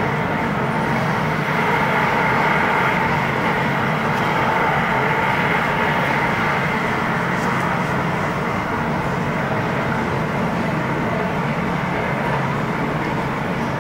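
A steady, unbroken droning rumble at an even level, with a faint hum running through it.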